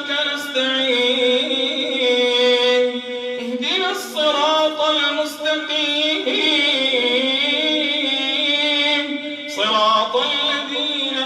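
A man chanting Quran recitation in the melodic, drawn-out tajweed style into a microphone. He sings long held notes that waver up and down, in phrases of a few seconds with short breaks between them.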